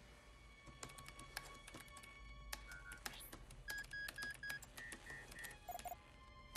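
Rapid computer keyboard typing, with short electronic interface beeps in quick groups of two to four from about the middle on, over a low steady hum.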